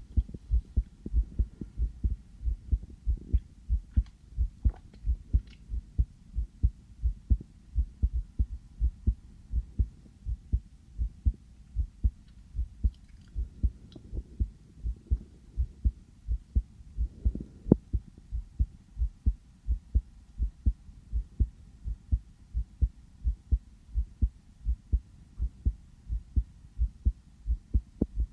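A person's own heartbeat picked up through a stethoscope pressed to the chest: a steady, even run of low thuds.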